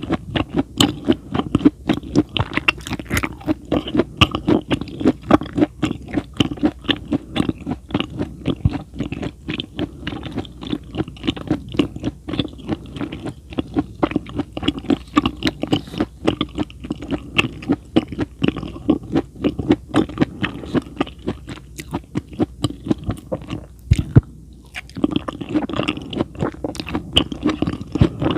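Close-miked chewing of raw food: wet smacking and crunching in a quick, steady rhythm. Near the end it breaks off briefly around a single sharp knock, then resumes.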